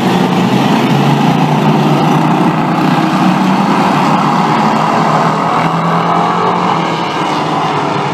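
A pack of Bomber-class stock cars racing past, their engines loud and overlapping, easing off slightly as the field pulls away down the track.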